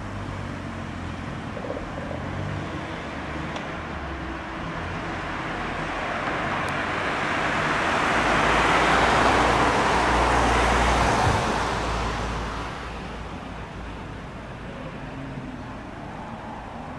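A van drives past close by: tyre and engine noise swells to a peak about halfway through and fades away, over a steady low engine rumble.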